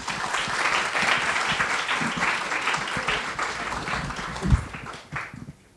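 Audience applauding, dense clapping that thins out and stops about five seconds in, with one low thump near the end.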